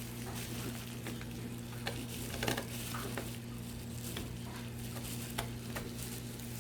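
Scattered light clicks and taps of small plastic headset parts and tiny screws being handled during reassembly, over a steady low hum.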